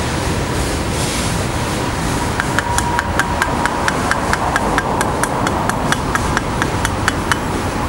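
Freight train tank cars rolling past with a steady rumble. A couple of seconds in, a rapid, regular clicking of about five clicks a second starts and runs for about five seconds.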